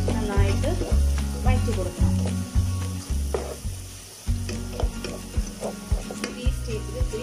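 Sliced onions sizzling as they fry in oil in a non-stick pan, stirred and scraped with a wooden spatula, with low thuds repeating about twice a second.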